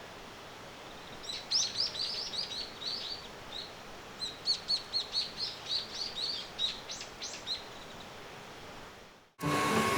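A small wild bird calling in two quick runs of high chirps, each a couple of seconds long, over a steady outdoor hiss. Near the end the sound cuts abruptly to a louder steady whirring noise with a constant tone.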